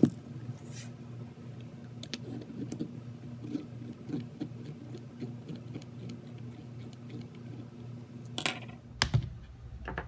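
Phillips screwdriver backing small screws out of a plastic armrest lid's latch mechanism: a run of light, irregular clicks and ticks of tool on screw and plastic, with a sharp click at the start and two louder clacks near the end.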